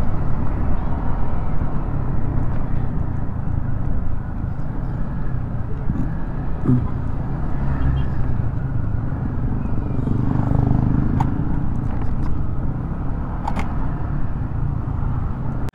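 Scooter engine running steadily at low riding speed, with wind rumbling on the on-board microphone.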